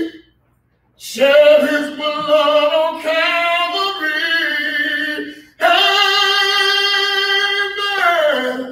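A solo voice singing a gospel song, holding long notes. The sound cuts out completely for under a second near the start. Near the end, a long held note slides downward.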